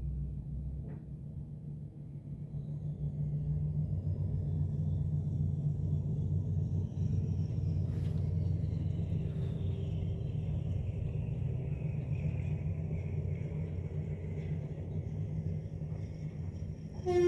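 Diesel locomotive and its passenger coaches passing: a steady low rumble that grows louder about three seconds in. A train horn starts just at the end.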